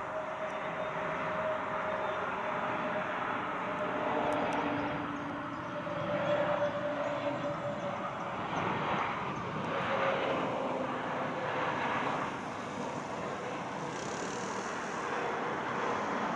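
Airbus A320neo's CFM LEAP-1A turbofans on final approach: a steady jet rush with a whining tone that slowly falls in pitch.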